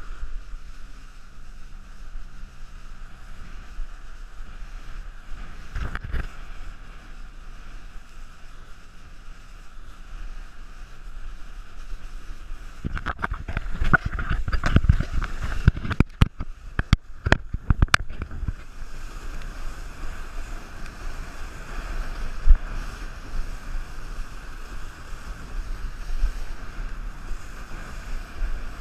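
Steady rush of wind and water spray while a wakeboarder is towed behind a jet ski. A run of sharp knocks and splashes comes about halfway through and lasts several seconds, as the board hits chop and wake, with one more hard knock a few seconds later.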